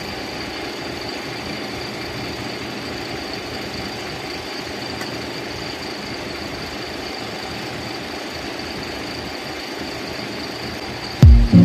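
An engine idling steadily in the background, an even drone with a thin high whine over it. Loud music with a thumping beat cuts in near the end.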